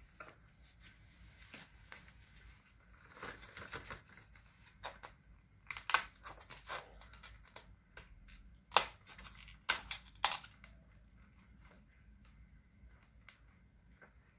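Scattered taps, scrapes and knocks from a Pomeranian puppy nosing, mouthing and pawing a rubber ball toy across a wooden floor, with a few louder knocks about six, nine and ten seconds in.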